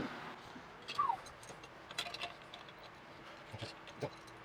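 A few separate light metal clicks and taps from hand tools and the spring compressor being worked on a motorcycle's rear shock spring, with a short falling squeak about a second in.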